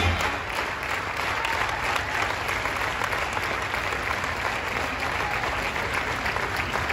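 Circus audience applauding steadily.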